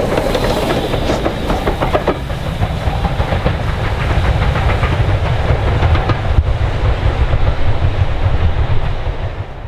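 Steam train passing close by, its wheels clicking over the rail joints. About two seconds in this gives way to a low rumble from steam locomotives approaching under heavy exhaust.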